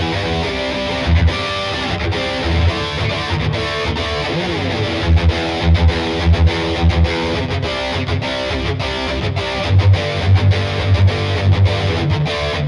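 Yamaha Pacifica 012 electric guitar played with heavy distortion, a continuous riff with repeated accented low notes.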